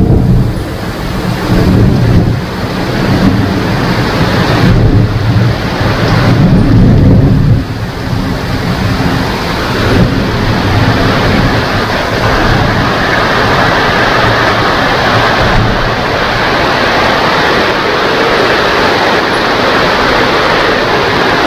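Thunder rumbling deeply over steady rain, dying away about seven or eight seconds in and leaving the even sound of the rain alone.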